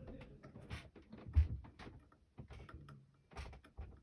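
Knife and sharpening stone being handled: scattered light clicks and short scrapes, with one dull thump about one and a half seconds in.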